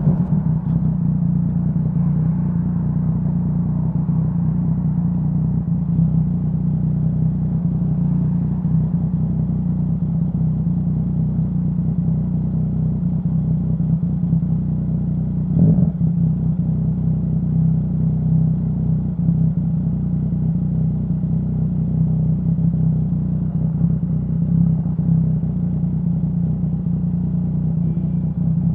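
Yamaha Tracer 900's three-cylinder engine through a full Dominator HP3 aftermarket exhaust, running at steady, fairly low revs with little change in pitch. A single brief knock is heard about halfway through.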